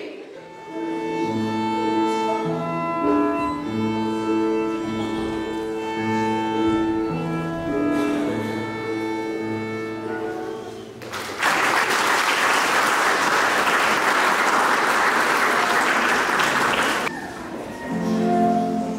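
Instrumental music of held notes, which ends about eleven seconds in; audience applause follows for about six seconds, then a flute begins playing near the end.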